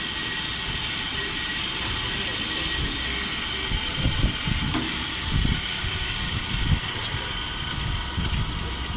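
Daljit HB 200 A automatic horizontal metal-cutting bandsaw running with a steady hiss and whine. From about four seconds in there are irregular low thumps and knocks.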